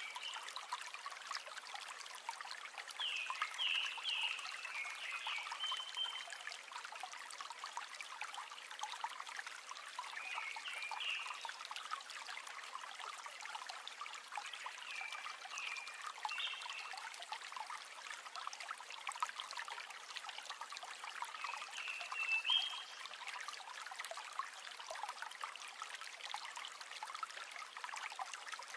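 River water running and trickling, a steady rush full of quick small splashes, with short high chirps from a small animal every few seconds.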